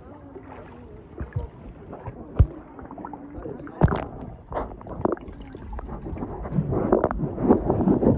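Water sloshing and gurgling around a camera held at and under the surface while snorkeling, muffled as heard underwater, with a few sharp knocks in the first half. A denser, louder stretch of bubbling comes near the end.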